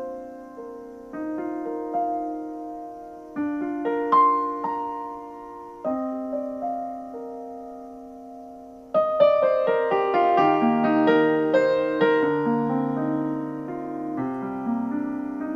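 Solo piano interlude: sparse chords struck every second or two and left to ring, then a louder, busier run of notes from about nine seconds in. It is played back through a home-built three-way speaker system with Fostex drivers.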